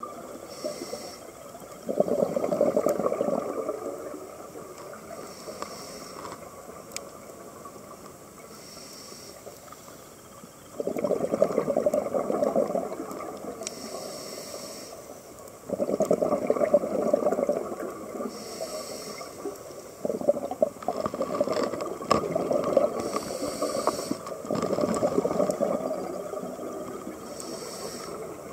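Scuba diver breathing through a regulator underwater: short hissing inhalations, each followed by about two seconds of exhaled bubbles gurgling past the housing, five breaths spaced several seconds apart.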